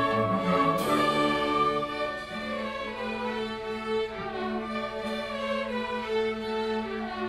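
Youth orchestra playing, led by bowed strings (violins and cellos) in sustained chords. A new chord comes in about a second in, over a low held note.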